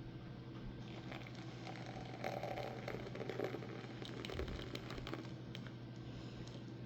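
Faint scattered light clicks and rustling, as of small objects being handled, over a steady low hum.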